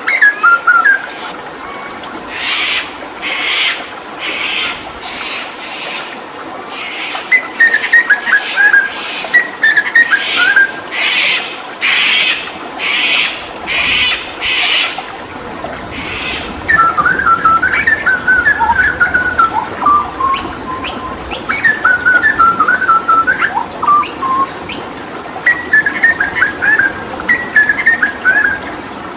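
Hooded butcherbird singing: quick runs of whistled, warbling notes that glide up and down, with a series of a dozen or so harsh, raspy notes in steady succession in the first half. A steady rush of running water sounds underneath.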